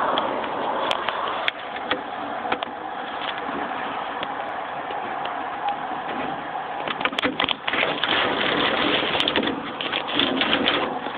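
Handling noise from a phone's microphone: rubbing and scattered clicks as the phone is moved about, over a steady hiss. The clicks come thicker in the second half.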